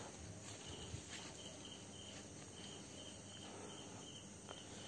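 Insects chirping faintly in a steady, evenly repeating pulse.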